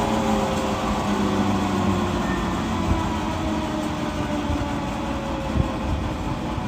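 Jet engine running, a rushing rumble with whining tones that fall slowly in pitch as the level eases off slightly.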